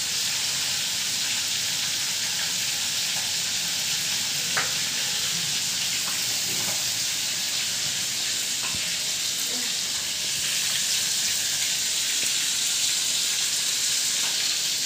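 Oil sizzling steadily in a pan on the stove, with a few faint crackles.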